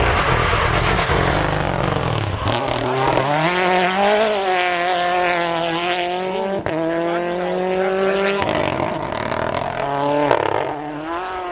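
Rally car engine at full throttle, its pitch climbing and holding, then dropping about eight seconds in as the revs fall. A sudden break partway through marks a jump to another shot.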